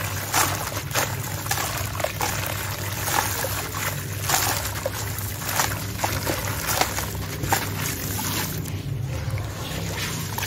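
Wet sand-cement chunk studded with gravel being crumbled by hand into a tub of water: gritty crumbs and bits dropping and trickling into the water with irregular crackles and small splashes, over a steady low hum. The crackling eases briefly near the end.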